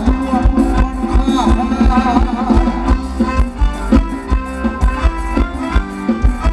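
Band playing Thai ramwong dance music with a fast, steady drum beat under sustained melody notes.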